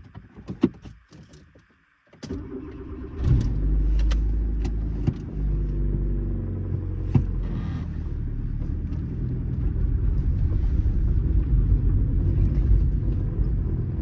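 A few clicks and knocks, then about two seconds in a car engine starts and runs with a steady low rumble, its pitch shifting up and down as it revs.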